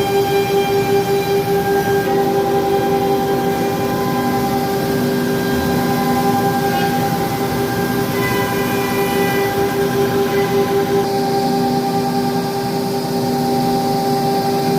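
CNC machine running: a steady mechanical whine made of several held tones that change pitch every few seconds as it works, with a fast pulsing in the first two seconds.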